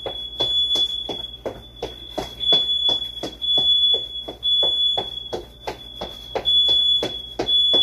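House alarm sounding a high, piercing tone that pulses loud about once a second, over a fast, even tapping about four times a second.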